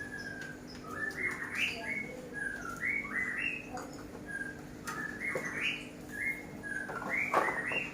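A small songbird singing: short chirping phrases of quick rising notes, repeated about every second, over a faint steady hum.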